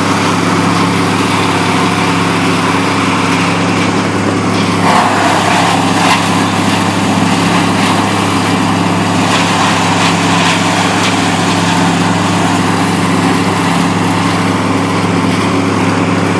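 A motor engine running steadily at an even pitch, from the tree-cutting crew's equipment, with a brief louder surge of noise about five seconds in.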